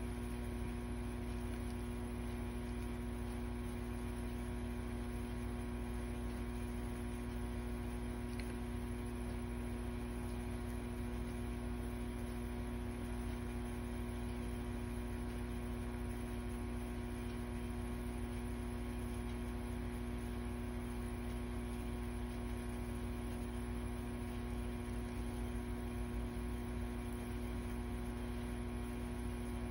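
Steady electrical hum: several even tones over a low rumble, unchanging throughout.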